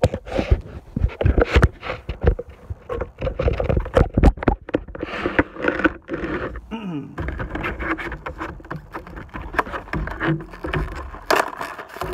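Irregular knocks, clicks and scrapes of handling, with crinkling of a clear plastic package being pulled open.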